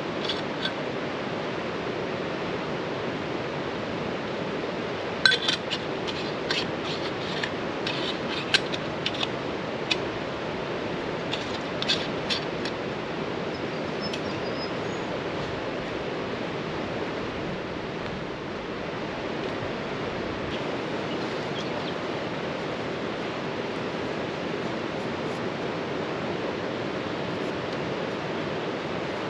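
A river running high and fast, a steady rushing of water. A scatter of sharp clicks and knocks comes over it from about five to thirteen seconds in.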